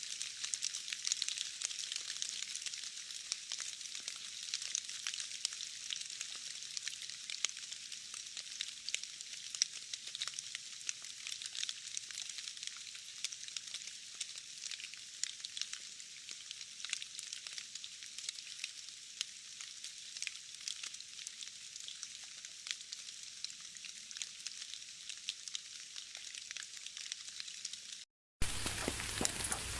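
Pouring rain: a steady hiss of dense, crackling drops. Near the end the sound cuts out for a moment and a fuller rain recording with more low rumble starts.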